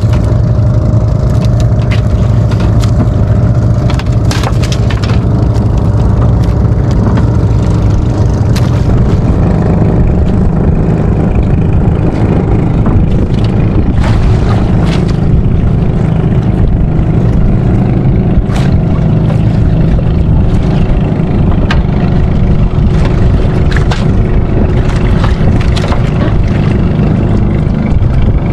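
Engine of a motorised outrigger fishing boat running at steady speed, a loud, even, low drone, with a few light clicks now and then.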